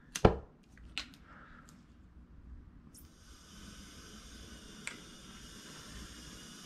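A few sharp clicks and knocks, then about three seconds in a gas torch lights and its flame hisses steadily as it heats a steel pinion gear for thermal cycling; one more sharp click comes near the end.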